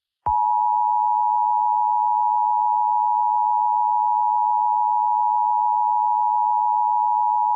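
Emergency Alert System attention signal: a loud, steady electronic alarm of two close pitches, held without a break. It is the alert tone that warns an emergency broadcast message is coming.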